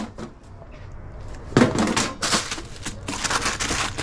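A sheet of paper rustling and crinkling as it is handled and folded, in a run of scratchy bursts beginning about a second and a half in.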